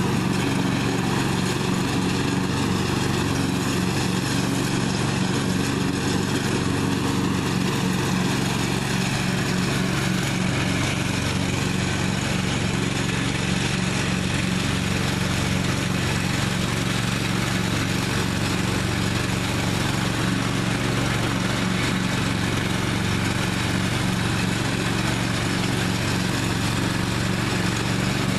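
Engine of a 1998 Husqvarna riding lawn mower running steadily at a constant speed while mowing.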